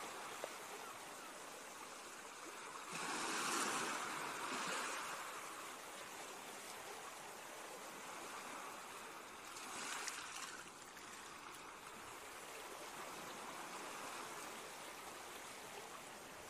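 Recorded Atlantic Ocean surf washing ashore in a steady hiss. Swells rise from about three seconds in and again near ten seconds.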